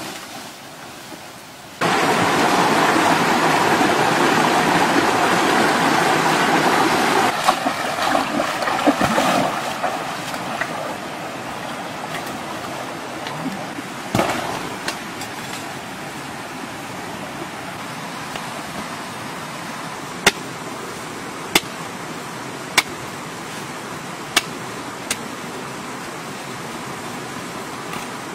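A loud, even rushing noise of foliage being handled starts suddenly and fades to a steady background hiss. Later there are five sharp knife chops into taro corms.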